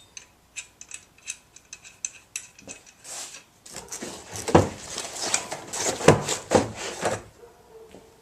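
Handling of a large folding pull saw and its case: light metallic clicks and clinks, then a few seconds of rough scraping, rustling strokes, the loudest near the middle.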